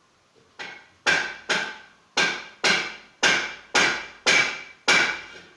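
Repeated sharp knocks, about two a second, each dying away with a short ring, like steady hammer blows.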